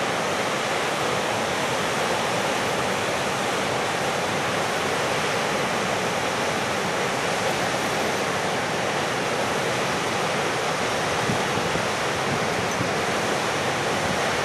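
A wide river waterfall and its rapids rushing steadily, whitewater pouring over a broad rock ledge.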